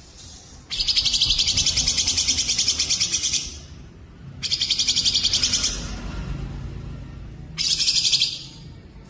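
Songbird singing three bursts of fast, even trills: a long one of nearly three seconds starting just under a second in, a shorter one of about a second and a half, and a brief one near the end.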